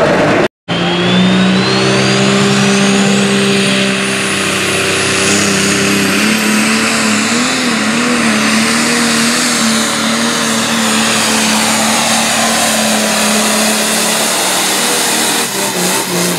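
Turbocharged diesel pulling tractor running at full throttle under load during a pull, with a high turbo whine climbing steadily over the first few seconds. The engine note holds steady and wavers briefly midway.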